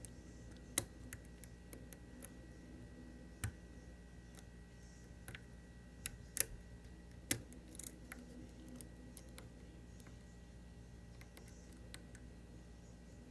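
Faint, scattered clicks of a lock pick and tension wrench working the pins of a Medeco Original lock: single sharp ticks a second or more apart, the loudest about six and a half seconds in.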